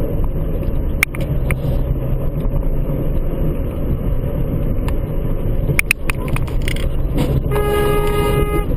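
Steady road and engine rumble inside a moving car's cabin, with a few sharp clicks, then a car horn honking once for about a second near the end.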